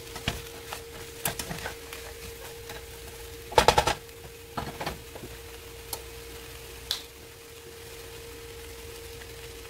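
Plastic spatula stirring and scraping wilting spinach, mushrooms and onions in a nonstick skillet, with scattered light clicks and a quick run of sharp knocks about halfway through, the loudest sound. A steady hum sits underneath.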